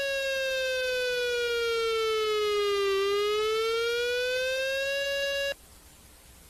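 Emergency alert siren tone: one steady pitch that slides slowly down for about three seconds and then back up, cutting off suddenly about five and a half seconds in.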